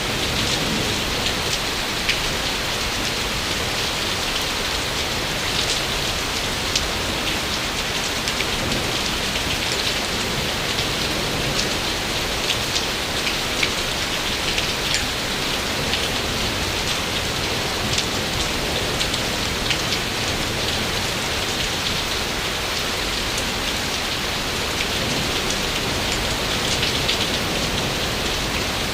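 Steady rain falling, a continuous hiss with many individual drops pattering and ticking throughout.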